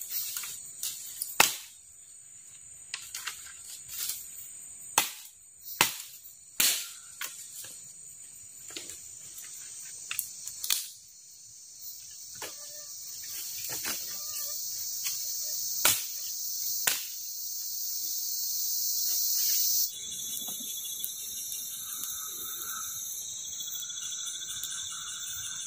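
High-pitched buzzing of forest insects, growing louder, with a string of sharp snaps and cracks from branches being broken and handled through the first two-thirds. Near the end the insect sound changes to a different, steadier chirring.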